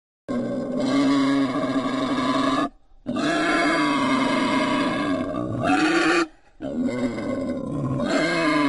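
Wild boar calling: three long, harsh, drawn-out calls, each two to three seconds long, with short breaks between them.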